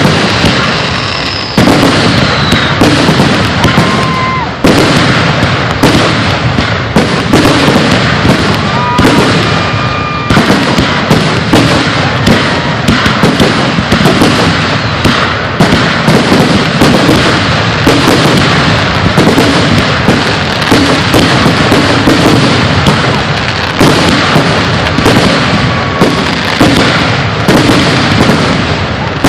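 A dense, continuous barrage of aerial fireworks bursting, the bangs overlapping with hardly a gap. A few short whistles sound through it, one falling in pitch near the start.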